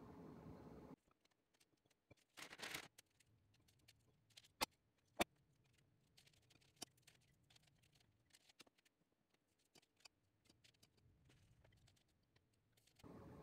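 Faint handling sounds of toppings being placed on mini pizzas on a parchment-lined baking tray: a short rustle, two sharp clicks about half a second apart, and scattered light ticks. A steady oven fan hum cuts off about a second in and returns near the end.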